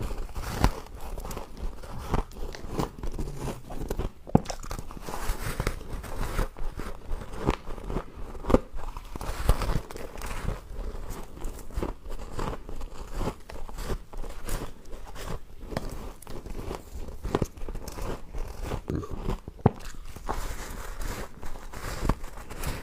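Ice being bitten and chewed close to the microphone: irregular crunches and cracks in quick succession, a few of them louder bites.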